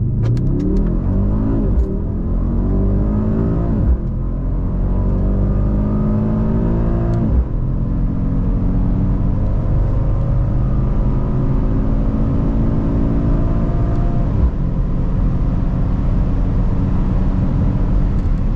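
2024 Mercedes-AMG GLS 63's 4.0-litre twin-turbo V8 accelerating, heard from inside the cabin. The engine pitch climbs through the gears of its nine-speed automatic, with upshifts dropping the pitch about 4, 7 and 14 seconds in.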